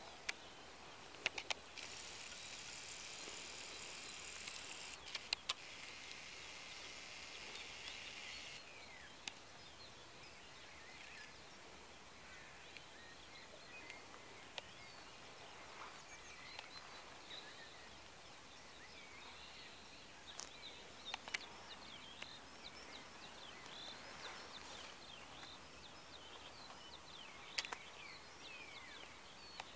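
Faint open-field ambience with scattered short calls from distant birds. For the first several seconds a louder hiss runs with a few sharp clicks from the handheld camera being moved.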